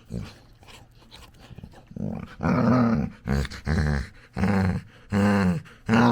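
Labrador puppy making a run of short, low, growly grunts while playing, about six of them. They start about two seconds in, after a couple of quieter seconds of soft breathing.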